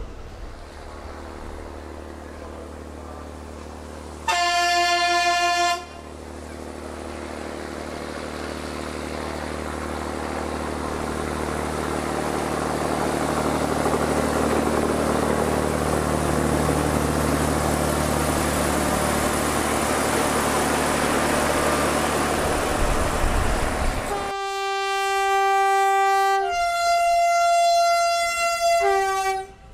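Trains passing at close range: a steady diesel engine hum with rail noise that swells as they go by, and a horn blast about four seconds in. Near the end a locomotive's two-tone horn sounds low, then high, then low again as it passes close.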